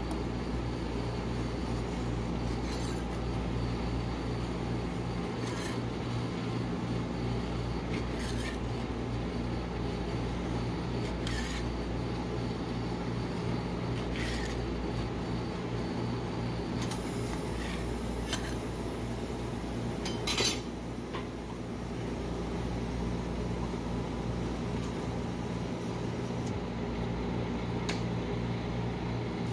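Metal spatula scraping and pushing frozen ice cream across a chilled steel pan, rolling it up, with a short scrape every few seconds, the loudest about twenty seconds in. Under it runs the steady hum of the cold pan's refrigeration unit.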